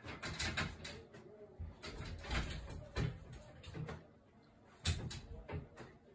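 A clothes drying rack rattling and knocking as a cat climbs over its rails: a string of irregular knocks and clatters, the loudest about five seconds in.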